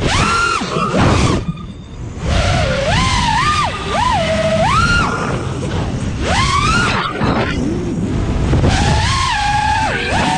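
The brushless motors and props of a 6S FPV freestyle quadcopter (Brother Hobby R6 2207 1800kv motors) whining, the pitch sweeping sharply up and down over and over with the throttle. Wind rushes on the onboard GoPro's microphone. The whine dips briefly about two seconds in.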